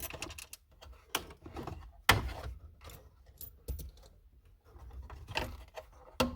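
Scattered clicks and knocks of hands fumbling among dashboard parts and wiring under a car's dash, with one sharp knock about two seconds in.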